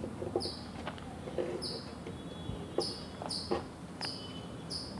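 Soft knocks and taps of cut young pumpkin cubes being scooped by hand off a wooden cutting board, the loudest a little under three seconds in and again about half a second later. A short high chirp repeats about once a second in the background.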